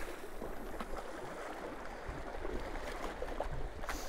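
Small waves lapping and sloshing against the rocks of a lake shoreline, a steady watery noise, with a brief click near the end.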